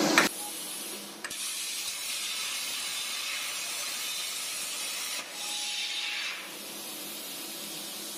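CNC plasma cutter torch cutting thin aluminium sheet: a steady hiss of the air plasma arc, starting with a click about a second in, louder for about a second past the middle, then softer.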